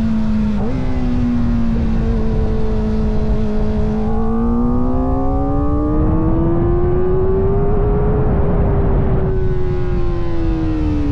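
Kawasaki Ninja ZX-4RR's 399 cc inline-four engine running under way, with a brief blip in revs about half a second in. The revs then climb slowly for a few seconds, hold, and ease off near the end. Wind rushes on the microphone throughout.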